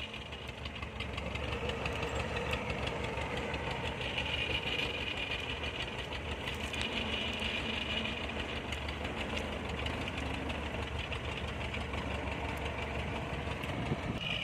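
Kubota DC70 combine harvester's diesel engine running steadily, growing a little louder about a second in.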